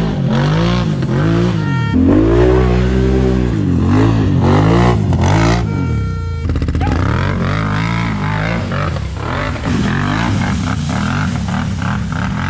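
ATV engines revving hard under load on a steep climb, the pitch rising and falling over and over as the throttle is worked. Short clips are cut together, with sudden changes in the engine sound about two seconds in and again about six and a half seconds in.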